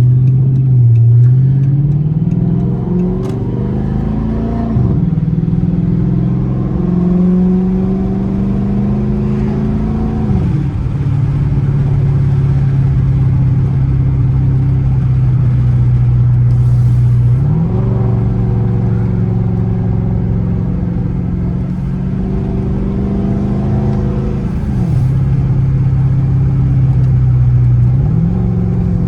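5.7-litre Hemi V8 of a Chrysler 300S running under way, heard from inside the car. The engine note climbs slowly and drops sharply at each gear change, about 5, 10 and 25 seconds in, and jumps back up quickly about 17 and 28 seconds in.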